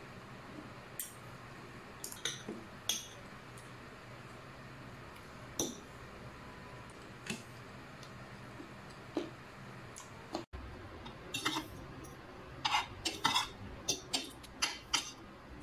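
Metal spoon and fork clinking and scraping against a plate while eating a meal of rice. The clinks are scattered at first and come thicker and faster in the last few seconds.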